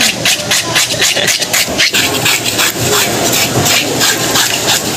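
Rapid, repeated scraping of a scaler over the scales of a large fish, about five strokes a second, as the fish is being scaled.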